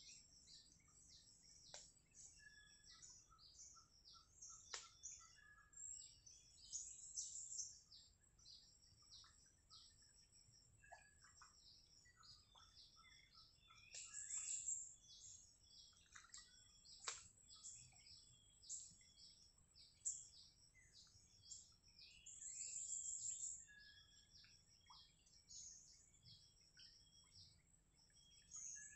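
Faint chorus of wild birds chirping and whistling in short high notes throughout, with two longer buzzy high trills, one around the middle and one about three quarters of the way in. A few sharp clicks sound in between.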